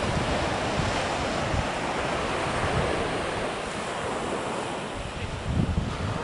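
Wind buffeting the microphone over a steady rush of sea surf, with gusts near the end.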